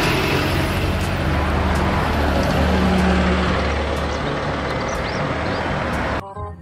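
Double-decker bus driving along and away, its engine running with a steady low drone under road and traffic noise. The sound cuts off abruptly shortly before the end.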